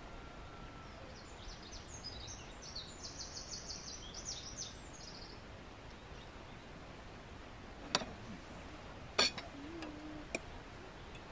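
A small bird twittering a quick run of high chirps over steady outdoor background noise. Later, a few sharp clinks of a serving spoon against plates, the loudest a little after nine seconds in.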